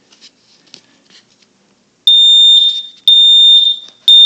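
Kidde smoke alarm sounding during a test-button check. It is quiet with a few faint clicks for about two seconds, then gives three loud, high-pitched beeps about a second apart.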